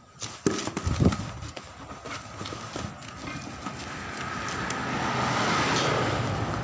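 Two dull thumps from the inflated truck inner tube being handled, then a hiss that builds over a few seconds and holds.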